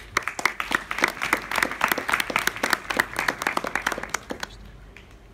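Audience applauding, with dense clapping that fades out about four and a half seconds in.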